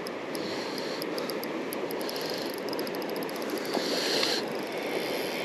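River water rushing steadily, with a short louder surge about four seconds in. Faint rapid clicking comes and goes on top of it.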